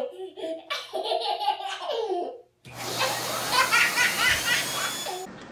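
A young child laughing in high-pitched bursts; after a short break about two and a half seconds in, squealing laughter over a steady rushing hiss.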